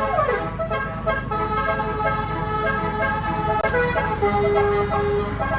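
Multi-tone bus telolet (basuri) horn playing a melody in short stepped notes, with a falling glide about half a second in. A low engine rumble runs underneath.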